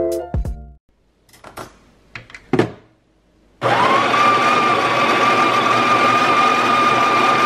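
Built-in burr grinder of a Breville Barista Express espresso machine grinding coffee into a hand-held portafilter: the motor spins up about three and a half seconds in and then runs with a steady whine. Before it, a few faint clicks.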